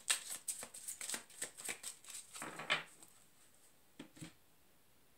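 A deck of tarot cards shuffled by hand: a quick run of crisp card flicks, about four or five a second, that stops about three seconds in. Two light taps follow a second later as the cards meet the table.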